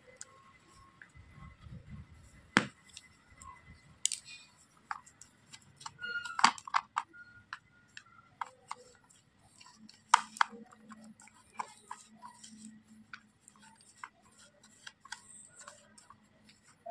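White plastic spatula scraping and tapping against a small plastic toy pot while stirring crumbly slate-pencil powder, with scattered clicks and a few sharper knocks, the loudest about two and a half, six and a half and ten seconds in.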